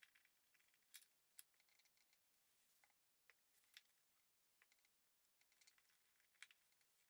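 Faint scratching and clicking of a hand screwdriver turning small screws into a brass butt hinge on a wooden lid, in short irregular bursts.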